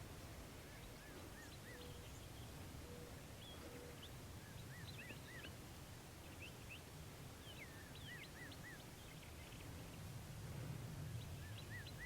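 Small songbirds singing in the woods: a phrase of three or four clear, arched notes repeats every three to four seconds, with scattered short high chirps, over a faint low rumble of ambient outdoor noise.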